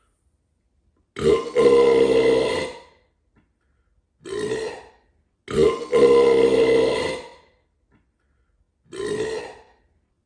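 A man burping four times: a long burp, a short one, another long one, then a short one, each with a clear pitched tone.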